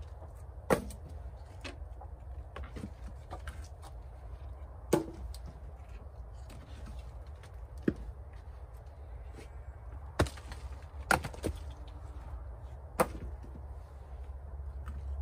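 Chopping blows on wood: about seven sharp strikes at irregular gaps of a fraction of a second to a few seconds, two of them close together near the middle, as a hand tool knocks apart the stick-and-clay front wall of a cabin.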